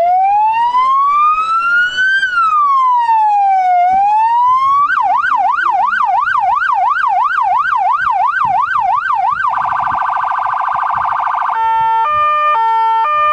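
Police car electronic siren run through its tones: a slow rising and falling wail, then a fast yelp about three sweeps a second, then a rapid warble, and near the end an alternating two-tone hi-lo.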